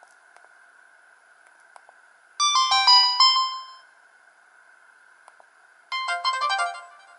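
Samsung GT-E2100 mobile phone ringtones playing through the phone's small speaker in two short snippets, each a quick run of bright electronic notes lasting about a second and a half and cut off short. The first comes about two and a half seconds in, the second about six seconds in. Between them a steady hiss with a few faint clicks.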